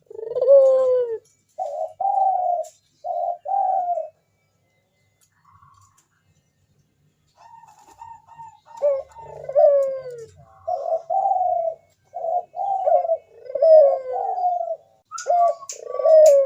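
Local puter dove cooing (manggung) in repeated short coo phrases, some gliding down in pitch. The cooing stops for about three seconds near the middle, then starts again more densely.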